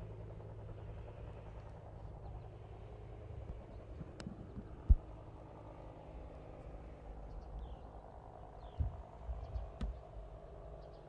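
Outdoor ambience: a steady low hum that fades over the first few seconds, an irregular low rumble with scattered thumps, and one sharp knock about five seconds in. A few faint high chirps come through in the second half.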